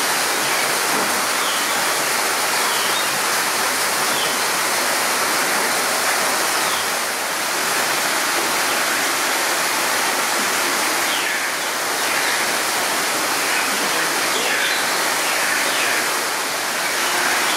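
Steady rush of a small waterfall splashing over rocks, with a few faint, short, high bird chirps now and then.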